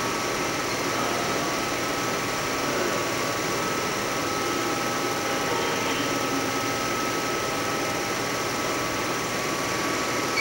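Film projector running, a steady mechanical whirr with a faint, even whine.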